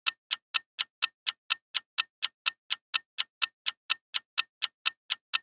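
Ticking clock sound effect marking a quiz countdown timer, with an even, crisp tick about four times a second.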